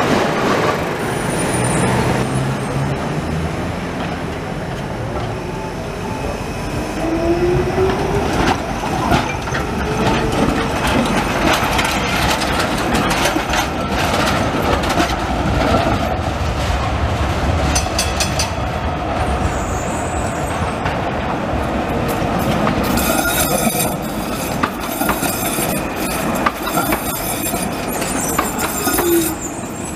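Street trams rolling past close by: a steady rumble of wheels on rail, with repeated sharp clacks as the wheels run over rail joints and crossings, coming thickest in the second half.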